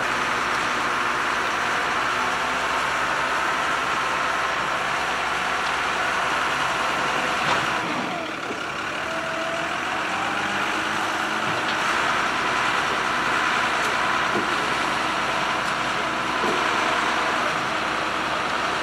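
Heavy diesel machinery, a mobile crane and a front-end loader, running steadily. A knock about seven and a half seconds in is followed by a short rising whine.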